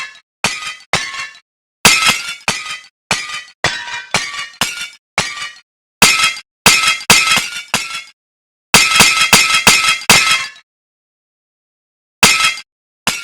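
Hard kitchenware being struck over and over, each blow a sharp clink that rings briefly at the same pitch. The blows come in quick runs of about two to three a second, with a pause near the end before two more strikes.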